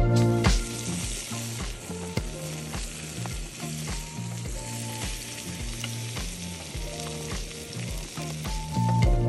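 Salmon fillet frying in oil in a pan over a gas camp stove: a steady sizzle.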